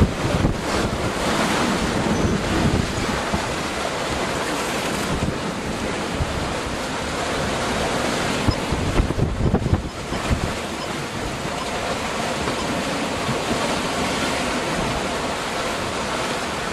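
Wind buffeting the microphone over the steady rush of open-ocean waves, aboard a sailboat under way, with stronger gusts in the first few seconds and again about halfway through.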